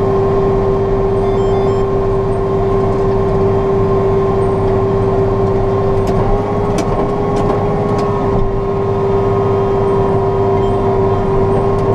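John Deere 6115M tractor running steadily while towing a loaded lime spreader, heard from inside the cab: a constant low drone with a steady whine over it.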